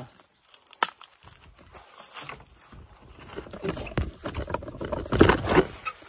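Irregular rustling and crackling of dry leaves and bamboo as someone moves through a bamboo thicket, with a sharp snap about a second in and louder rustling near the end.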